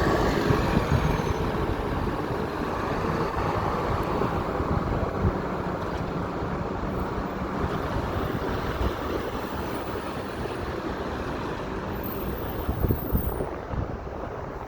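City street traffic: a steady wash of passing cars, trucks and buses.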